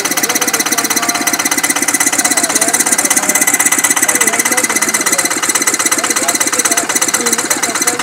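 Engine of a two-wheel walk-behind hand tractor running steadily at idle, with an even, rapid beat.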